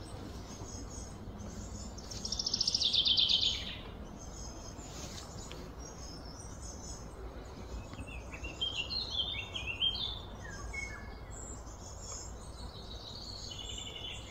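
Wild birds chirping and singing, with a loud rapid trill about two seconds in and a run of stepping, falling notes around eight to ten seconds in, over a steady low background rumble.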